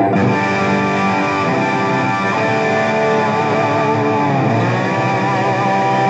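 James Tyler SE Deluxe electric guitar, run through a DigiTech GSP1101 processor and a Lexicon MPX1, struck hard once and left to sustain as a full, ringing chord. About four seconds in its pitch sags and comes back up.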